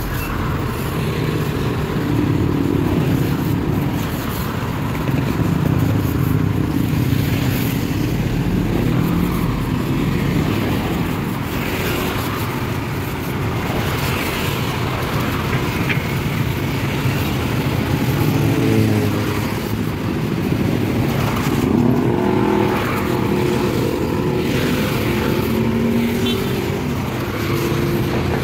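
Busy city-street traffic: cars and motorcycles driving through an intersection. About two-thirds of the way through, a couple of engines rise in pitch as they accelerate.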